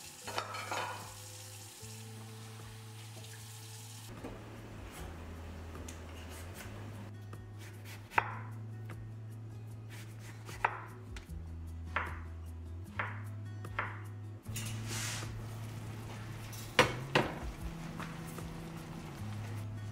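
Tap water running into a kitchen sink, then a chef's knife slicing a peeled potato on a wooden cutting board, with sharp knocks about a second apart. Near the end a frying pan sizzles, with two loud knocks, over soft background music.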